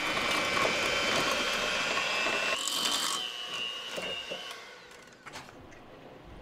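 Electric hand mixer running with a steady whine, its beaters mashing boiled sweet potatoes with butter in a metal saucepan. It stops about four and a half seconds in, followed by light clinks of a spoon in the pot.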